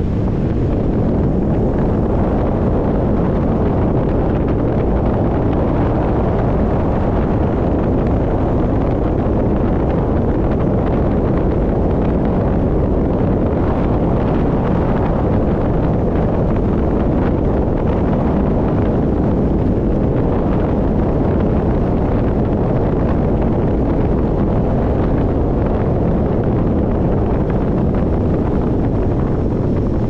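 Steady wind rumble on the microphone over road noise from a moving vehicle.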